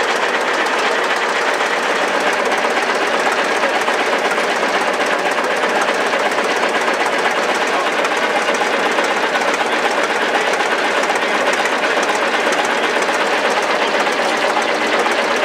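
ChTZ crawler tractor's engine idling with a steady, fast knock, exhausting through a vertical stack whose hinged rain flap flutters open with the exhaust pulses.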